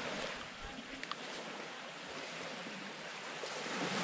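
Steady hiss of small waves washing onto a sandy beach, with a brief faint high chirp about a second in.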